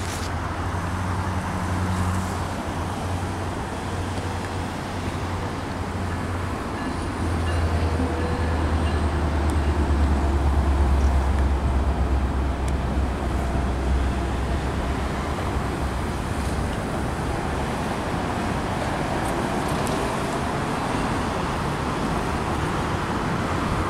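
BNSF mixed freight train, autoracks and boxcars, rolling past with a steady rumble of steel wheels on the rails, blended with road traffic at a nearby intersection. A deep low hum swells about a third of the way in and fades again.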